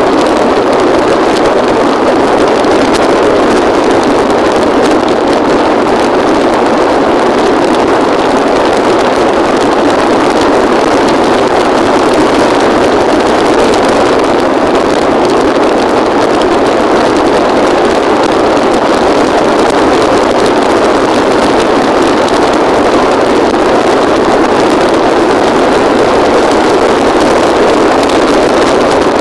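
A steady, loud rush of riding noise from a motorbike at road speed, engine and wind over the microphone blended together, unchanging throughout.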